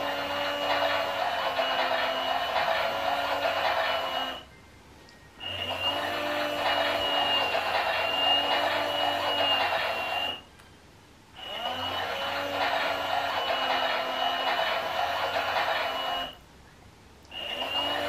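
Klein toy Miele Softtronic washing machine's small electric motor turning the drum, tumbling a small load of clothes: a steady whirring whine that rises briefly in pitch as each run starts. It runs for about five seconds at a time, stopping for about a second three times.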